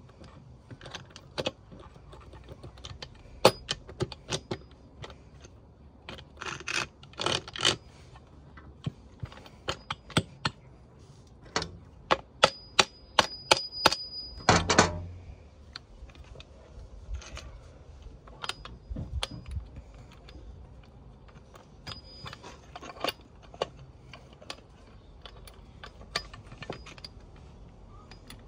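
Irregular metallic clicks and clinks of transmission gears and shafts being handled and seated in an open crankcase half of a Suzuki RM85 engine, with one heavier knock about halfway through.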